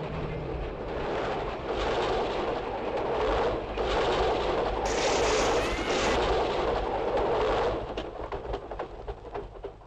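Train rumbling and clattering across a wooden trestle bridge with rapid wheel clacks. It is loudest in the middle, then dies away near the end in a few scattered clacks as it passes.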